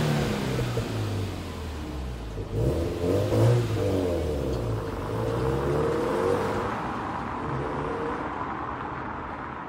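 Subaru WRX STI's turbocharged EJ20 flat-four engine revving a few times as the car pulls away, then growing steadily fainter as it drives off.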